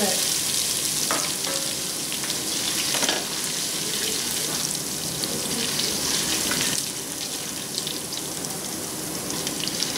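Onions, fenugreek seeds and garlic-ginger paste sizzling steadily in hot oil in a stainless steel pot. A slotted spoon stirs and scrapes the pot now and then. This is the garlic being sautéed until it colours for the tempering.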